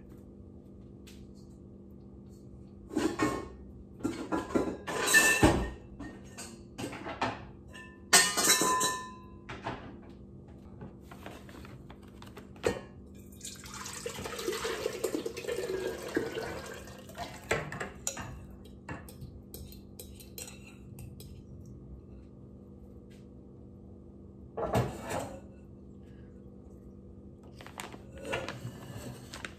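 A glass mixing bowl and a metal utensil clinking and knocking as a thick wet mould-making mix is stirred. Around the middle the mix is poured from the glass bowl into a stainless steel mixing bowl, a few seconds of wet pouring. Near the end there is another knock and a utensil scraping in the steel bowl.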